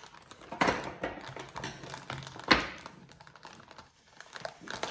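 Plastic packaging being handled and opened: crinkling and rustling with scattered taps and clicks. The loudest is a sharp click about two and a half seconds in.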